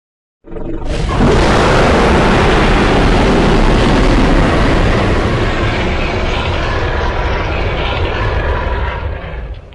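A custom-made monster roar sound effect: one long, loud, noisy roar, heavy in the low end, that starts abruptly from silence about half a second in, holds for about eight seconds and fades away at the very end.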